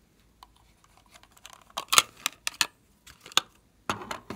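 Hands handling a plastic toy treasure-chest container and a nail polish bottle: a run of sharp clicks and taps. The loudest clicks come about two seconds in, with a few more near the end.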